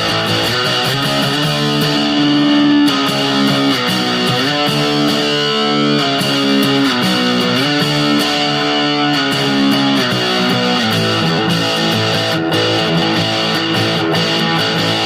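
Electric guitar played through a SubZero SNOWSTORM distortion pedal, the distortion set high on its normal mode: distorted chords and single notes left to ring and sustain, changing every second or so.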